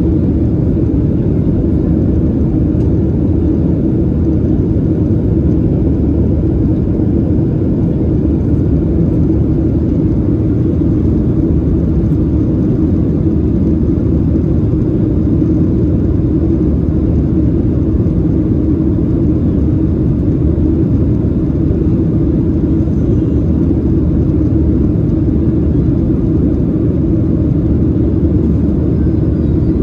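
Boeing 737-800's CFM56-7B jet engines and airflow heard inside the passenger cabin as a steady, even drone, mostly low rumble, with no change in pitch or level.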